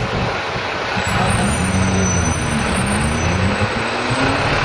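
Luas tram (Alstom Citadis) standing at a city street stop, its equipment humming under steady street traffic noise. In the middle, a low tone dips in pitch and then rises again.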